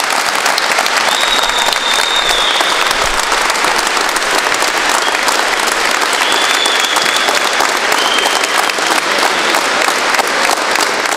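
A crowd of players and spectators clapping steadily, with several short, high, steady whistles sounding over the applause in the first part.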